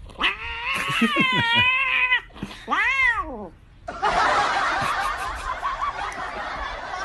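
A cat meowing while eating a lickable treat from a tube: a long wavering meow, then one short meow that rises and falls about three seconds in. From about four seconds a dense noisy hiss takes over.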